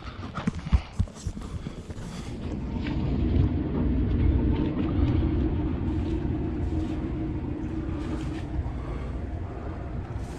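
Sailing yacht's inboard diesel engine running steadily under way as the boat motors out, the rumble building over the first few seconds. A few knocks come just before it.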